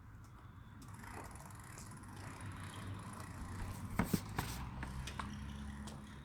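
Low, steady engine-like hum that grows stronger in the second half, with two sharp clicks about four seconds in.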